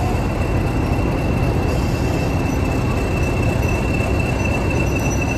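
English Electric Class 40 diesel locomotive 40106 running close by: its 16-cylinder engine gives a steady low rumble, under a continuous high whistle held at one pitch, the turbocharger whistle the class is known for.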